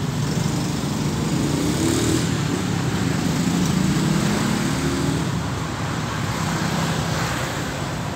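Street traffic noise, with a motorcycle engine swelling as it passes in the first half.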